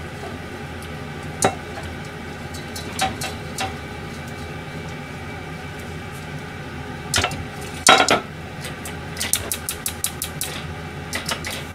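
Metal cooking pans clanking as they are set down on a gas stove's burner grates, the loudest knocks about seven to eight seconds in, followed by a run of quick light clicks.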